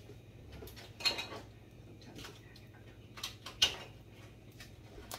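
Kitchen clatter: a few sharp knocks and clinks of dishes and utensils being handled, the loudest about three and a half seconds in, over a steady low hum.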